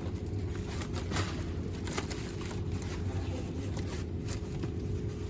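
Steady low machine hum with a few faint clicks and knocks.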